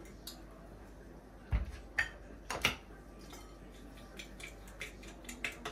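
A glass jar knocked down onto the counter, then clinks of a fork against a glass bowl, turning into a run of light, quick clicks as the fork beats the egg-and-milk mixture in the bowl.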